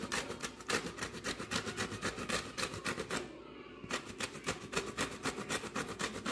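Lemon rind scraped quickly up and down a white plastic box grater while zesting: rapid rasping strokes, about five a second, with a short pause about halfway through.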